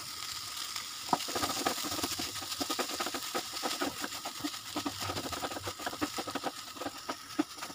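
Spatula stirring and pressing a soft potato and paneer mash in a nonstick frying pan: a run of short taps and scrapes on the pan, a few a second, over a faint steady hiss.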